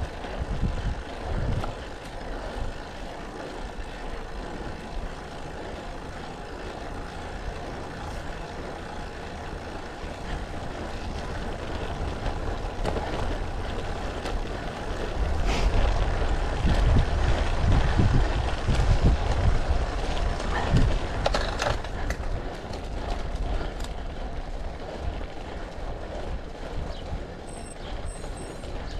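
Riding noise from a road bike on asphalt: wind rumble on the camera microphone and tyre hum. The rumble swells louder for several seconds around the middle, with a few short clicks.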